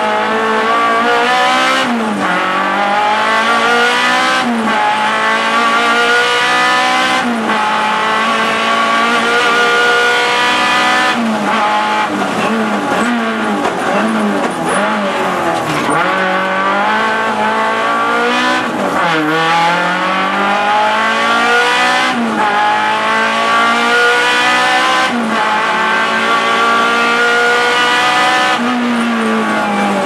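Renault Clio Sport's four-cylinder engine at full race effort, heard from inside the cabin: it revs up hard again and again, each climb cut by a short break at the gear change, with the revs falling and blipping through downshifts into the bends.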